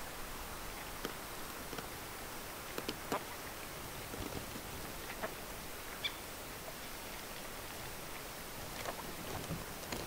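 Steady hiss of outdoor background noise, with a few faint short ticks scattered through it, about three seconds, six seconds and nine seconds in.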